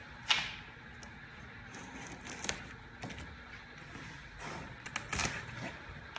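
Handling noise around a cardboard carton: a few scattered soft knocks and rustles, the loudest about two and a half and five seconds in, over faint room noise.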